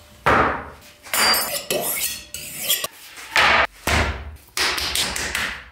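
Kitchen things being put down and slid across a countertop: a run of separate knocks and clatters, some with a short clink.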